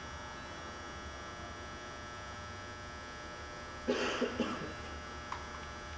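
Bridgeport-Hardinge Series I CNC vertical mill running its X-axis table traverse, giving a steady electrical hum and whine; the axis drive itself is quiet. A brief louder noise breaks in about four seconds in.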